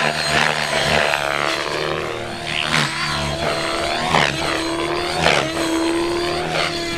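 Self-designed electric radio-controlled helicopter flying aerobatics: a whine from the motor and rotor that bends up and down in pitch as it swoops, with several loud whooshes of the rotor blades.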